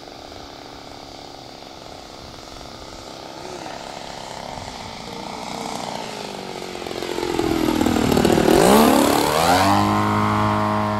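Radio-controlled aerobatic model airplane's engine and propeller running steadily, growing louder as the plane makes a low pass; loudest about eight to nine seconds in, then a steady, slightly fading drone as it moves off.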